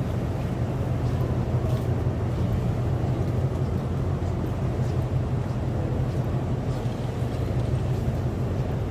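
Steady low hum and rumble of railway station platform ambience, with a few faint ticks.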